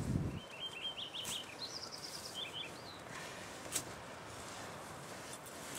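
A songbird singing short runs of quick, high chirping notes, then falling quiet, with a sharp click about four seconds in.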